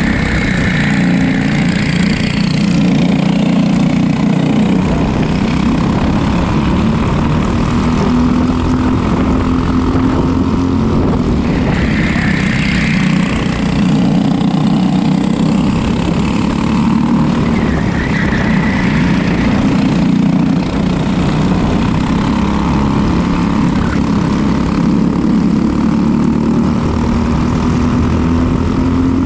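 Racing kart's single-cylinder engine running hard on track, its pitch rising and falling with the throttle and climbing steadily near the end.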